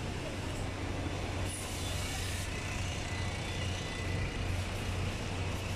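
Road traffic on a wet road: a heavy vehicle's engine running with a steady low hum, and a brief hiss about one and a half seconds in.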